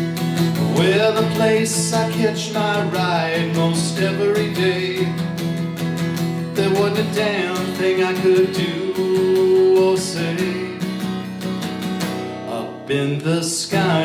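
Acoustic guitar strummed with a voice singing along: held, wavering sung notes over steady chords.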